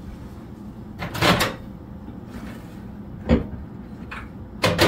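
Microwave oven door being opened and shut: a swinging, rattling sound about a second in, a sharp click with a thump a little after three seconds, and a quick double click near the end.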